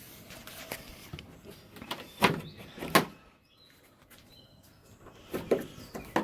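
Two loud clunks about a second apart, then a few softer knocks and a sharp click near the end; faint bird chirps in between.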